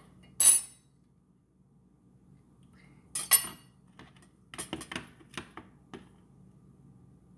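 Kitchenware being handled and set down on a stovetop: a sharp clatter about half a second in, a louder one a little after three seconds, then a run of lighter clicks and knocks.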